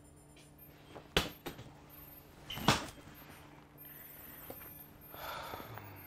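A sharp knock about a second in, then a louder thud about a second and a half later, over a faint steady hum; a soft hiss near the end.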